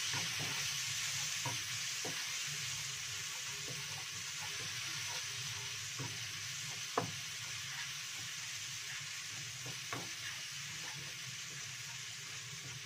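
Ground spice paste sizzling in hot oil in a wok while a wooden spatula stirs it, with occasional light knocks and scrapes of the spatula against the pan, one sharper knock about seven seconds in.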